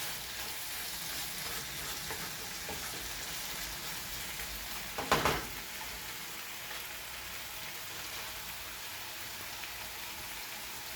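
Diced chicken and vegetables in soy sauce sizzling steadily in a pan over high heat while being stirred, with one brief louder noise about five seconds in.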